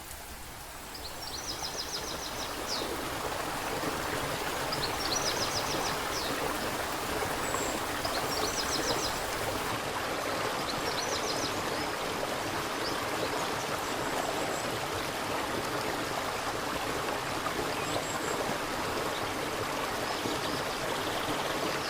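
Rushing mountain stream running steadily, swelling up over the first few seconds. Over it a small songbird repeats a short, high, rapid trill four times, a few seconds apart, in the first half, with a few faint high chips after.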